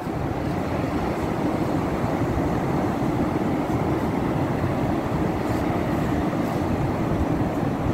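Steady rumble of surf breaking on a beach, mixed with wind buffeting the microphone.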